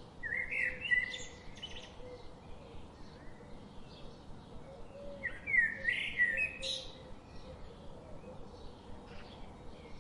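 A bird singing two short phrases of quick rising and falling notes, one about a second in and another around five seconds in, over faint scattered chirping.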